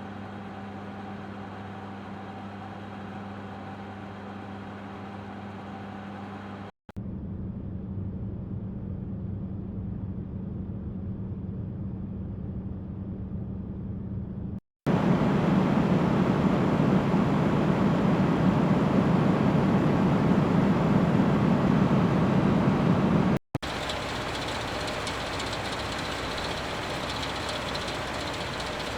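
Four separate steady mechanical whirs, each several seconds long with a brief silent break between them; each holds a steady low hum under a haze of noise, and the third is the loudest.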